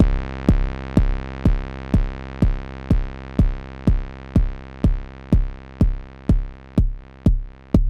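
Electronic music demo loop: a drum-machine kick about twice a second under a sustained synth chord, played as an audio example through the Elysia Xpressor compressor. The chord thins and fades near the end while the kick goes on.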